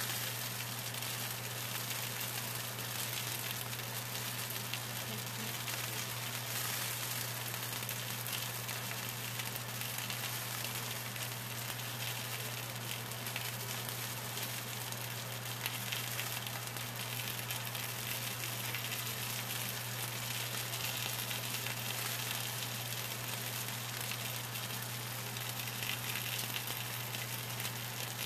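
Steady sizzling of food cooking on a hot gas stovetop: skewered chicken wings on a griddle pan and oil in a frying pan. A steady low hum runs underneath.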